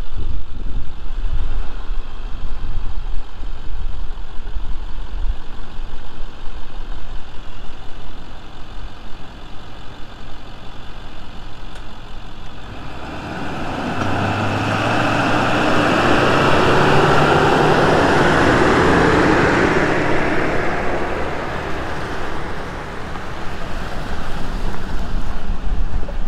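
A Ford Super Duty tow truck towing two Suburbans in a chain drives slowly past on a gravel road. Its engine and the tyres crunching on gravel grow louder, are loudest about 16 to 20 seconds in, and then fade as the towed Suburbans roll by.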